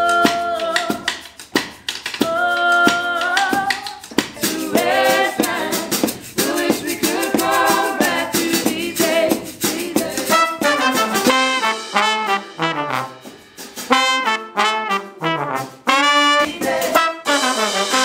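Live band rehearsal: a brass section of trumpet and trombone plays over a drum kit, with singers' vocals.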